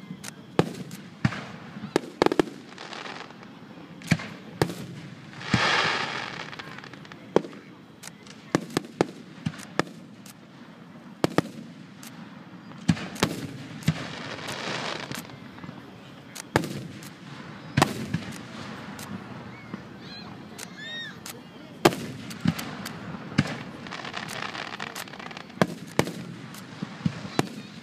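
Fireworks finale: aerial shells bursting overhead in a rapid, irregular run of sharp bangs, with hissing and crackling between them.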